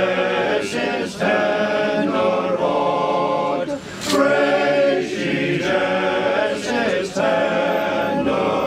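A group of voices singing a Christmas carol together, line by line, with short breaks between the phrases.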